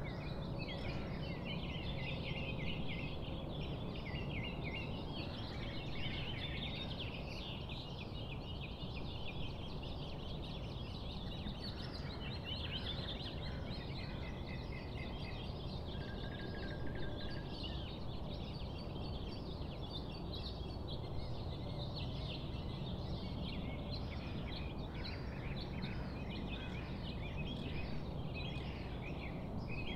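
Outdoor nature ambience: many birds chirping continuously over a steady low rumble.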